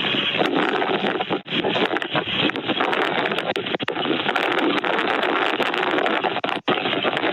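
Strong wind buffeting the microphone: a loud, rough rushing noise with a few brief dropouts.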